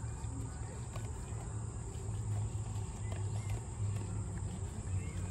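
Outdoor ambience: a steady high insect buzz over a low rumble, with a few faint chirps near the end.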